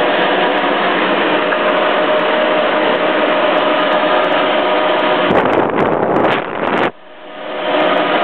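Wall-mounted hotel hair dryer with a hose running: a steady rush of blown air with a steady whine. About seven seconds in it cuts out suddenly, then winds back up.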